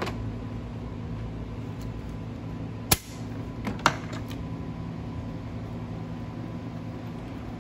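A few sharp clicks and knocks as parts are handled on the Jeep Wrangler's engine, the loudest about three seconds and four seconds in, over a steady low hum.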